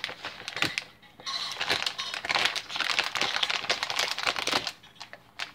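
Plastic bag of peas and carrots crinkling and rustling as it is handled, louder from about a second in.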